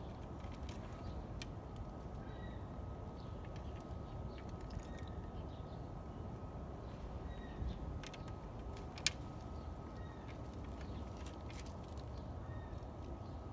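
Steady low outdoor background noise with faint short bird chirps every few seconds and a few light clicks, the sharpest about nine seconds in.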